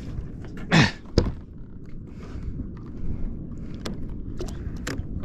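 Water and handling noises around a fishing kayak on the sea: a loud whoosh about a second in, a sharp knock just after, then low rumbling water and wind noise with a few light knocks.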